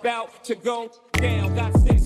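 Hip hop song with a rapped vocal. The beat drops out for a moment about a second in, then comes back with heavy bass and falling bass glides near the end.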